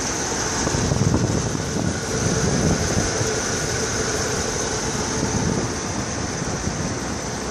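Rebuilt Chevrolet 400 small-block V8 idling steadily, heard close up under the open hood; the owner says it runs excellent.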